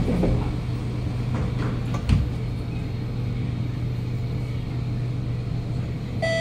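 Kawasaki Nippon Sharyo C751B metro train pulling away from a station, heard from inside the carriage: a steady low motor hum and running rumble, with one thump about two seconds in. A chime of tones begins at the very end.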